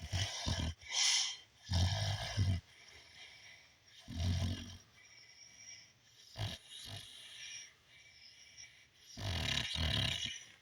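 Snoring: rough, rattling snores with breathy snorts, coming in irregular bursts with quiet breaths between, the loudest about two seconds in and again near the end.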